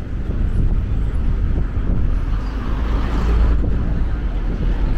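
Road traffic running past on the street beside the pavement over a steady low rumble, with one vehicle swelling louder as it passes about three seconds in.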